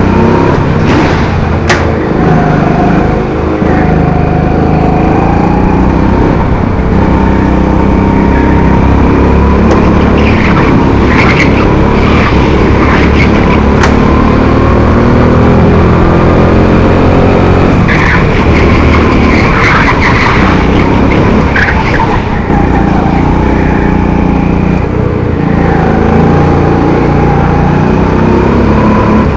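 Onboard sound of a Rimo Evo 5 kart's 200cc Honda four-stroke engine running hard, its pitch rising and falling as it accelerates and lifts through the corners. Tyres squeal in short spells about a third of the way in and again past the middle.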